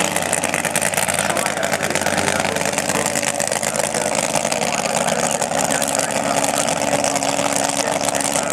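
Drag-racing funny car engine idling steadily.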